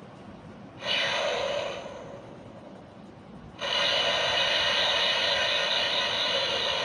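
Kamen Rider Zero-One Driver toy belt playing electronic sound effects through its small speaker for the Dire Wolf Progrise Key: a short hissing whoosh about a second in, then a louder steady rushing hiss from about three and a half seconds in.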